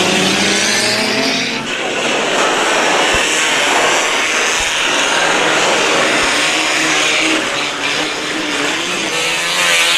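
Several banger-racing cars racing flat out on a dirt oval, their engines revving loudly and overlapping as they pass.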